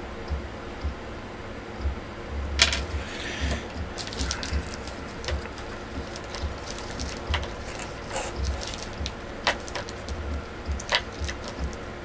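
Small plastic figure parts and packaging handled on a wooden desk: irregular clicks, taps and short rustles, starting about two and a half seconds in, over low knocks against the desk.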